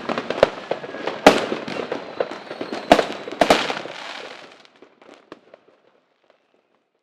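Fireworks going off: a dense crackle punctuated by sharp bangs about a second in and around three and three and a half seconds in, thinning to a few scattered pops near the end.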